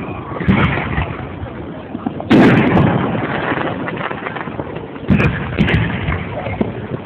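Aerial fireworks shells bursting: a smaller bang about half a second in, a loud boom about two seconds in that rumbles away, then a few sharper pops and crackles around five seconds in.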